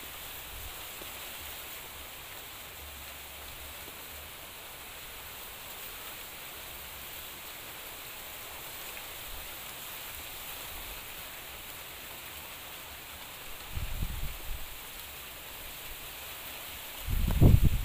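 Steady outdoor background hiss with faint rustling. There are brief low rumbles about fourteen seconds in and again near the end.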